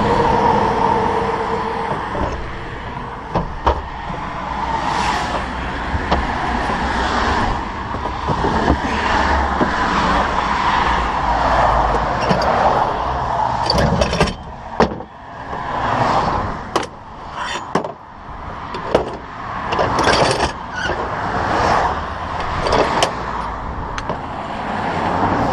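Highway traffic passing on an interstate shoulder, swelling and fading as vehicles go by, with a passing vehicle's whine dropping slightly in pitch at the start. In the second half come a series of sharp knocks and clicks.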